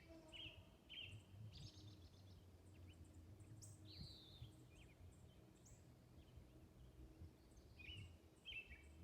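Faint outdoor birdsong over a low background rumble. Short repeated chirps come near the start and again near the end, and a single arching whistled note sounds about four seconds in.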